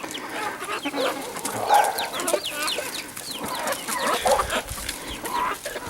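A flock of chickens clucking and chattering as they feed, a dense run of short clucks and chirps mixed with scattered brief clicks.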